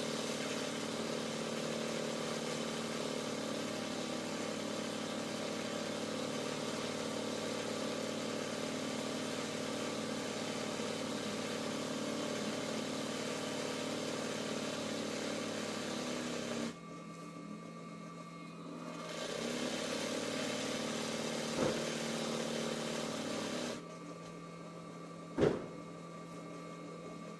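RANEW 130 zigzag sewing machine running steadily in free-motion embroidery, its motor and needle making a constant hum. It stops a little past halfway, runs again for a few seconds with a click, then stops again. A sharp knock comes near the end.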